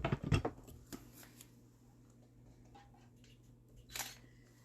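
Sliced raw sweet potatoes handled and laid into a microwave grill dish: a quick run of clatters and taps at the start, a few light taps about a second in, and one more clatter near the end.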